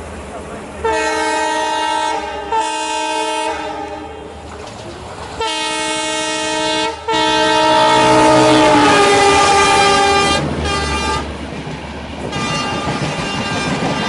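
WDP4D diesel locomotive's multi-tone air horn sounding five blasts. The fourth is long, and its pitch drops as the locomotive passes close alongside. Then its coaches rush past with rumble and rail clatter.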